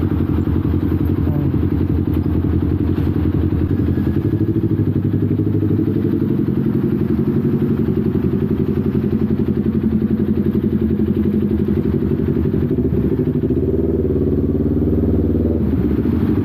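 Kawasaki Ninja 400's parallel-twin engine running steadily while riding, picked up by an action camera's internal microphone together with low wind rumble. Its pitch wavers slightly near the end.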